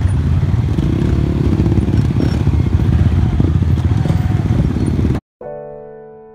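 Several scooters and small motorcycles running at low speed as a group rolls off along a dirt track, heard from one of the bikes as a dense rumble. About five seconds in it cuts off abruptly and a piano chord starts, ringing and slowly fading.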